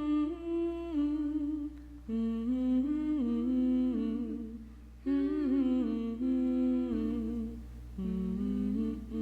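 Wordless humming of a slow melody in held notes, changing pitch about once a second, with the voices seemingly moving together in harmony.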